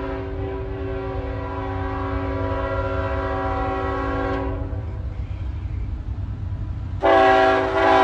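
Passing train's horn: a long blast that cuts off about four and a half seconds in, then after a short pause a second, louder blast starting near the end, over the steady low rumble of the train.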